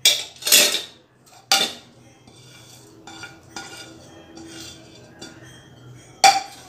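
Steel spoons clinking and scraping against a ceramic plate and a glass bowl as chopped herbs are scraped off into the bowl. There are sharp clinks at the start, about half a second in and at a second and a half, quieter scraping and rustling between, and one more loud clink near the end.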